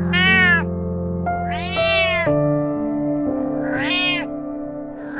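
Domestic cat meowing three times, each call rising and then falling in pitch, over background music of held notes.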